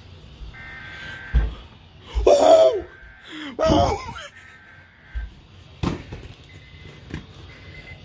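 Weather alert radio sounding high electronic tones: a steady tone held for about a second, twice, then short beeps about once a second toward the end. Two loud, brief bursts cut in near the middle, and there is a sharp click about six seconds in.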